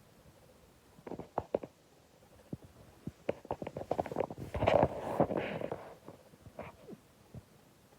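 Sleeping cat snoring: a run of short rattling clicks builds into one breathy snore around the middle, with a fainter rattle about a second in and another near the end.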